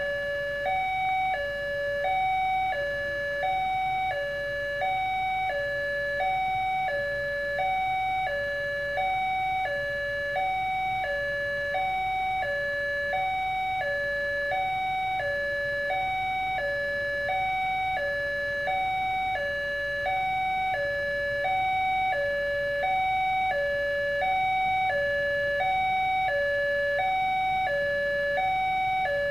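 Railway level-crossing warning alarm from the loudspeaker on the crossing signal post: an electronic two-tone alarm switching steadily between a higher and a lower note, each held about half a second. It sounds while a train is approaching the crossing.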